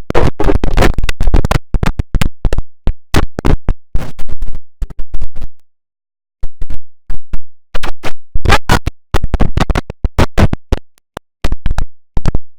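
Effects-processed remix of the IBM OS/2 Warp 3 shutdown sound, chopped into loud, rapid stuttering fragments that cut in and out abruptly, with a brief silence about six seconds in.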